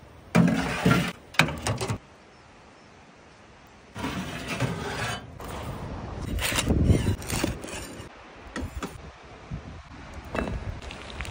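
A run of short cooking handling noises, knocks, scrapes and clatter of cookware and food on a wood stove and wooden board, broken by a quiet stretch of about two seconds near the start.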